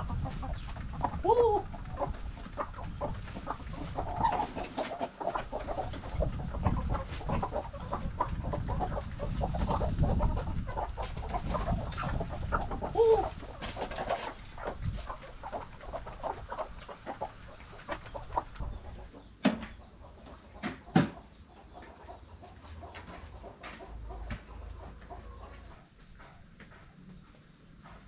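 Hens clucking as they feed on scattered grain, with a few short rising-and-falling calls. A steady high insect trill sounds behind them. Two sharp knocks come about two-thirds of the way through.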